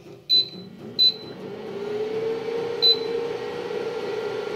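Induction cooktop beeping three times as its control buttons are pressed, then starting up with a hum that rises in pitch and settles into a steady tone over a steady whir as it begins heating a steel pot of water.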